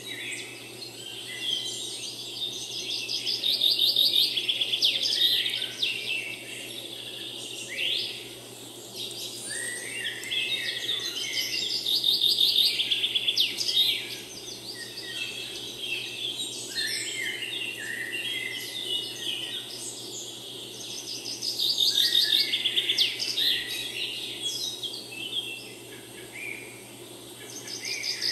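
Woodland birdsong: several small birds singing and chirping, with rapid high trills that come and go, loudest about four, twelve and twenty-two seconds in.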